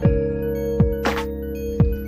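Background music: held synth chords over deep kick-drum beats, with a snare hit about a second in.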